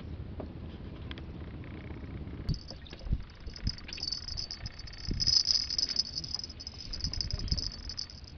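Insects trilling in a high, pulsing chorus that starts about a third of the way in and carries on, with a few short low knocks and a low rumble underneath.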